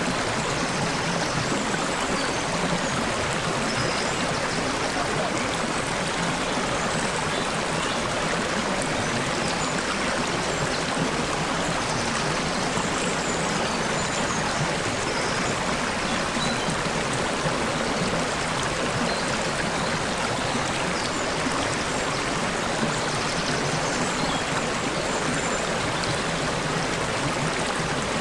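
Water babbling steadily over rocks in a stream, with faint short bird chirps now and then.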